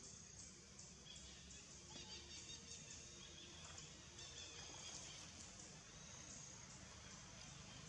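Near silence: faint outdoor ambience with a low rumble and faint high-pitched insect buzzing that comes and goes.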